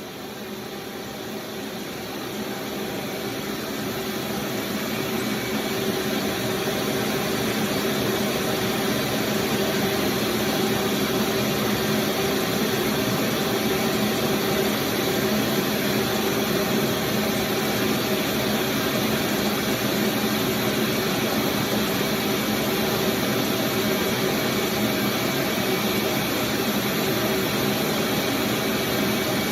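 A small engine running steadily with a whirring hum, growing louder over the first several seconds as it comes up to speed, then holding an even pace.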